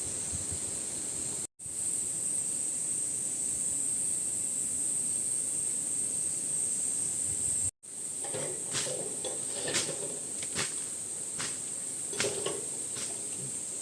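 Insects chirring steadily at a high pitch, the sound breaking off for an instant twice. From about eight seconds in, a few light knocks and clatters sound over the insects.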